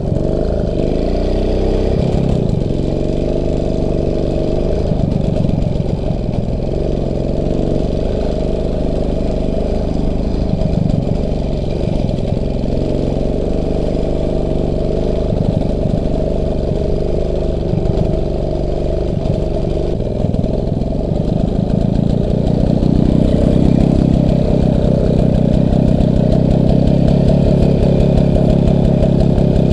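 Motorcycle engine running with the revs rising and falling, starting abruptly and getting louder about two-thirds of the way through.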